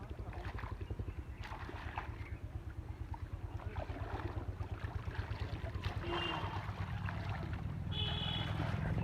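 A small engine running steadily with a fast, low throb. Scattered splashes of water sit over it, and two short high chirps come near the end.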